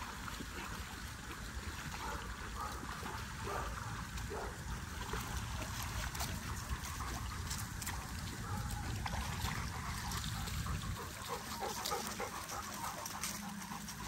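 Dogs splashing about in water, with faint trickling and splashing over a steady low rumble.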